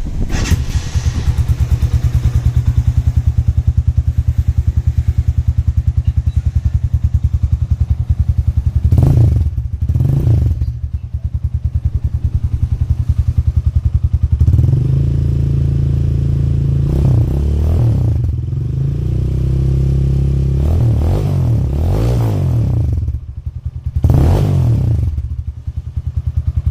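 Rusi Classic 250 motorcycle engine, carburettor version, running through a full-size bottle pipe exhaust: an even, pulsing idle broken by two quick throttle blips about nine and ten seconds in, a longer rev that rises and falls from about fourteen to twenty seconds, and more blips near the end.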